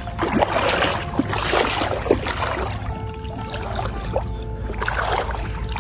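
Shallow water sloshing and splashing in irregular swishes as a person wades and sweeps a hand net through a flooded paddy.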